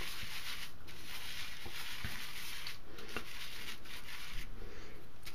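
Edwin Jagger best badger shaving brush swirled in a wooden bowl, its bristles rubbing through soap and water as it builds lather: a soft, steady rubbing.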